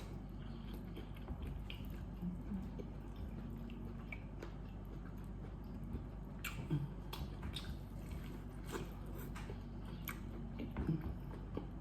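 A person eating a saucy seafood boil: wet chewing and smacking, with scattered short sharp clicks and ticks, a few louder about halfway through and again near the end.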